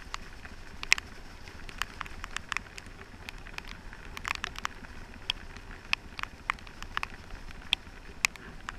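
Dirt bike ridden along a muddy, rutted track: a low rumble with frequent, irregular sharp clicks and ticks.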